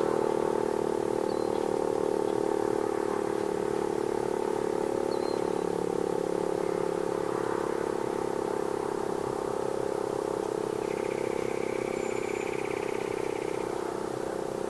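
Federal Signal Model 7A electromechanical rotating warning siren sounding a steady, single-pitch tone during its test run.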